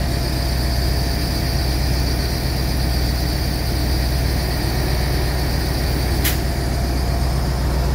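Wirtgen W1900 cold milling machine's diesel engine running steadily at idle, a constant low hum. A single sharp click about six seconds in.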